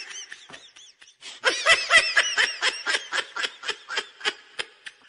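A woman laughing hysterically in high-pitched, quick rhythmic bursts. The laughter is quieter at first, strongest about two seconds in, and fades near the end.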